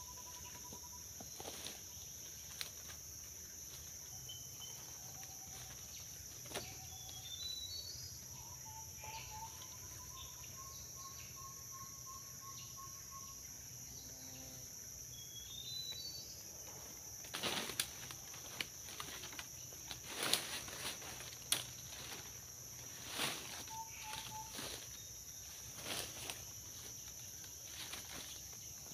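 Rainforest ambience: a steady high drone of insects, with a bird calling in short whistled notes and quick rising chirps in the first half. In the second half, boots crunch and twigs crackle in dry leaf litter.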